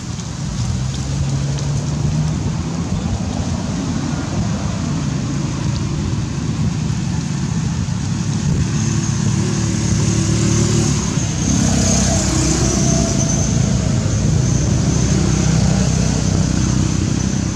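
Steady low rumble of a motor-vehicle engine running, its pitch shifting now and then. A high hiss comes up about halfway through.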